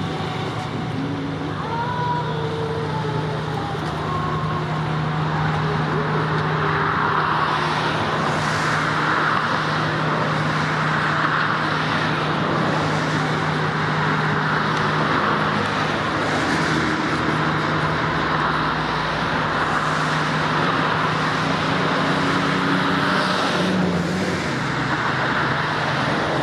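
Road traffic noise, steady throughout, with a constant low hum underneath and slow swells as vehicles pass.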